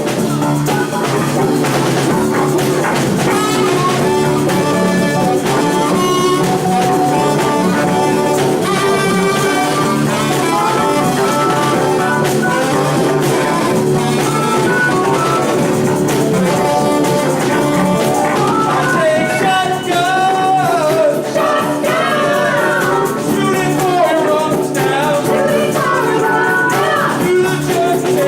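A live band playing an upbeat song, with singing, brass and guitar over a drum kit.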